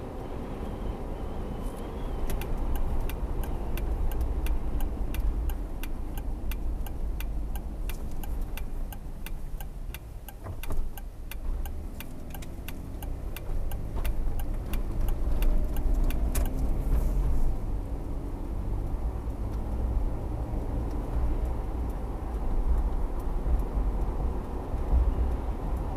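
Car cabin road and engine rumble while driving. From about two seconds in, a turn signal clicks at a quick, even pace for roughly fourteen seconds, then stops.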